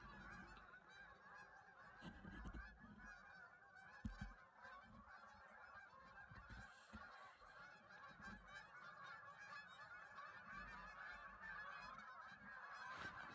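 A distant flock of geese honking, many faint overlapping calls running on without a break, with a low thump about four seconds in.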